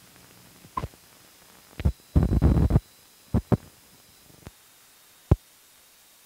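Scattered pops and thumps from an old film's optical soundtrack running over blank leader, with a crackling burst of about half a second near the middle and a last sharp pop near the end.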